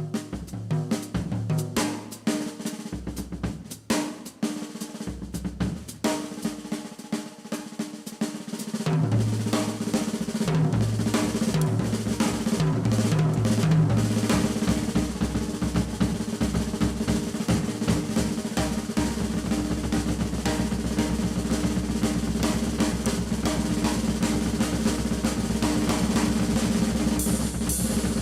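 Jazz drum kit playing, snare and drums struck in separate strokes at first. About nine seconds in it grows louder into a dense run of rolls low on the toms and bass drum, which merges into an unbroken roll in the second half.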